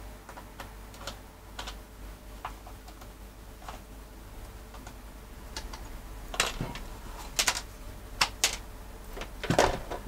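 Light clicks and taps of small screws being pulled out of a multitool's plastic casing and set down, with the tool handled on the bench; several sharper clicks come from about six seconds in.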